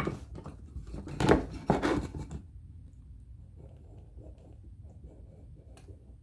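Workshop handling noise during a wood glue-up: a sharp knock at the start, a burst of louder scraping and rustling about a second in, then faint quiet handling.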